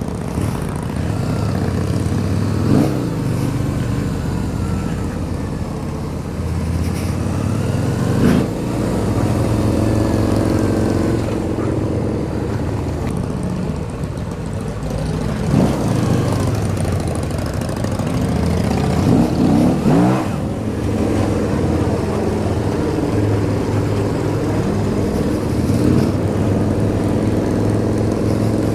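Harley-Davidson V-Rod's V-twin engine running steadily while riding, its revs rising and falling briefly four or so times with throttle changes or gear shifts.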